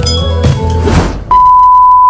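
Upbeat intro music that cuts off about a second and a half in, replaced by a loud, steady, single-pitched test-tone beep, the tone that goes with TV colour bars.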